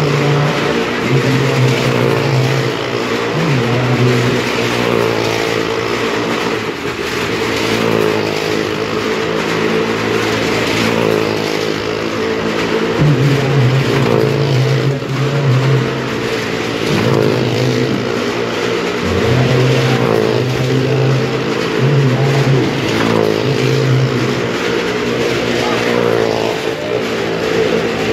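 Engines of stunt vehicles circling the wall of a well-of-death arena, running loud and continuously with the revs rising and falling over and over.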